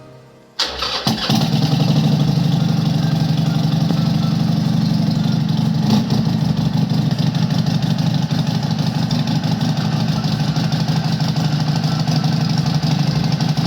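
Harley-Davidson Sportster 72's 1200 cc V-twin engine started about half a second in, catching within a second, then idling steadily with a pulsing beat, run to warm the oil before an oil change.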